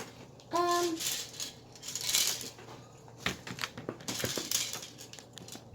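Slime being squished and worked by hand, with crackly squishing noises and a few light clicks and taps from handling.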